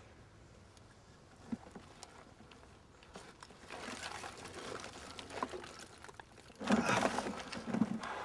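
Loose soil crumbling and crunching as a rusted, buried German powder container is worked free, lifted out of its hole and set down on the grass; the handling noise begins about three and a half seconds in and is loudest near the end.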